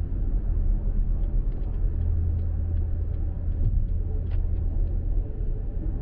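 Steady low road rumble inside a moving car: tyres on asphalt and the engine, heard through the cabin.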